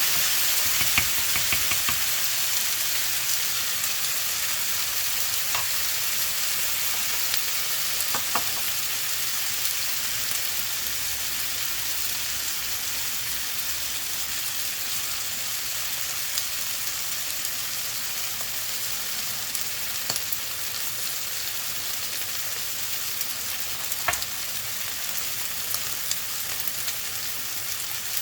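Kimchi fried rice sizzling in a pan, a steady hiss that slowly fades, with a few sharp clicks.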